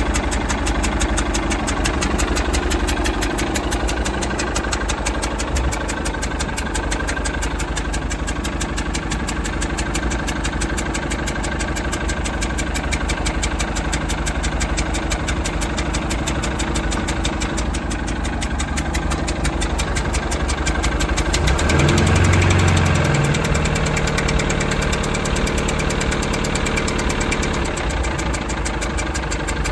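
2002 MerCruiser 3.0 four-cylinder marine engine idling with a rapid clicking, ticking noise. Briefly louder about three quarters of the way through, then settling back to idle.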